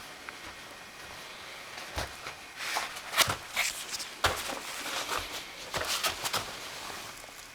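Metal tools and parts clinking and knocking as they are handled in tyre-changing work, with a few sharp knocks and short bursts of rattling clatter in the middle.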